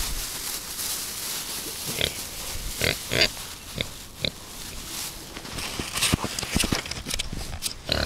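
Pigs at a fence giving a handful of short grunts and snorts, spaced out over a few seconds, while they wait to be fed. Wind hisses on the microphone throughout, and there is a patch of small clicks and rustles near the end.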